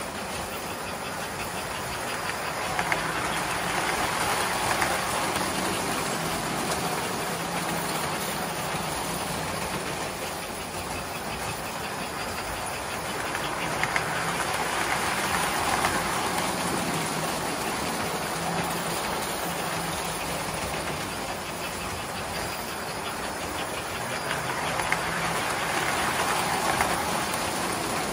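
Several electric tinplate toy trains running on metal track, a steady clatter of wheels and motors that swells each time a train passes close, about every eleven seconds, with a few sharp clicks.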